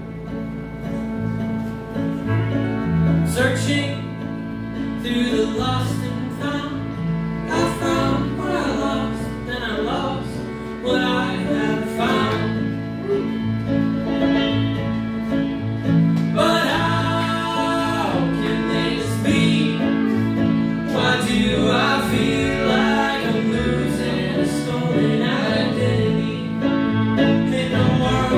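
Live bluegrass band playing: fiddle, banjo, upright bass and acoustic guitar together, with a voice singing.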